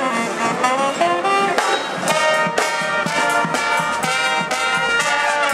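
Street brass band playing a tune: trumpets and trombones moving through quick changing notes, over a steady beat of about two hits a second.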